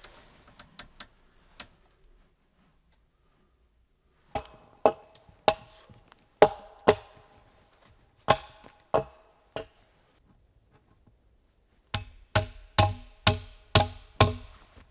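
Hard blows on a wooden board, each ringing briefly with the same hollow, pitched tone. Spaced strikes come first, often in pairs, then after a pause a quicker, even run of about two to three blows a second near the end.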